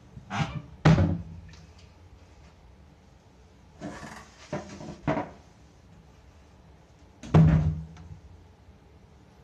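Knocks and thuds from things being handled at a kitchen stove: two loud thuds with a brief low ring, about a second in and about seven seconds in, and a cluster of lighter knocks around four to five seconds in.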